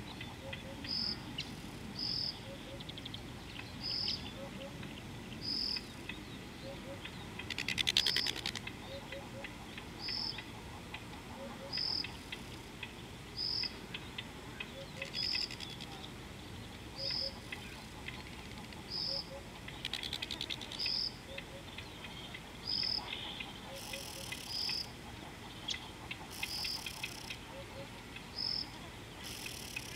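Outdoor wildlife sounds: a short high chirp repeated steadily about every two seconds, with a few longer buzzy insect-like trills scattered through.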